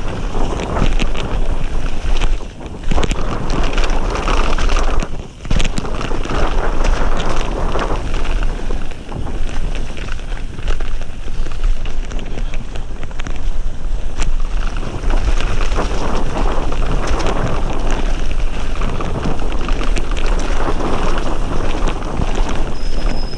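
Wind rushing over the camera microphone and knobbly tyres rolling over a wet dirt trail on a fast mountain-bike descent, with frequent sharp clicks and knocks from the bike going over bumps and roots. The rush drops briefly twice, about three and five seconds in.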